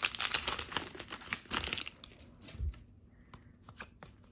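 Foil wrapper of a Pokémon card booster pack crinkling and tearing as the cards are pulled out of it. After about two seconds this gives way to quieter clicks and slides of the cards being handled, with a soft thump a little past halfway.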